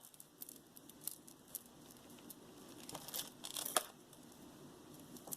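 Faint handling noise of small jewelry pieces and wire being picked through: light rustling with scattered small clicks, a few sharper ticks a little after three seconds in.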